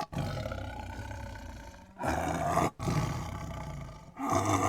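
A big cat, such as a tiger, roaring and growling in several drawn-out phrases separated by short breaks.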